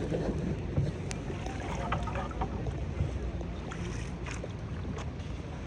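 Outdoor boat ride: a steady low rumble of wind on the microphone and water around a small boat, with a few faint knocks.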